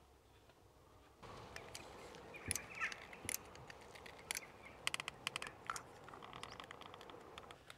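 Caulking gun clicking as its trigger is squeezed to pump sealant around a plastic duct pipe, starting about a second in and faint. A few faint bird chirps come through the outdoor background.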